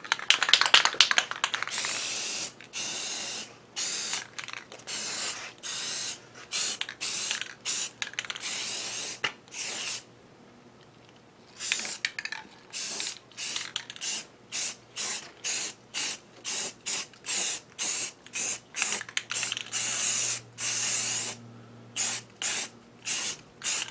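Primer being sprayed from a spray can in many short hissing bursts, one pass after another, with a pause of about a second and a half near the middle.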